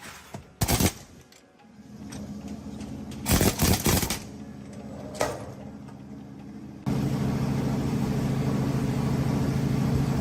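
A few sharp knocks, then a small motor running with a steady low hum. About seven seconds in, a louder motor-driven tool starts suddenly and runs steadily.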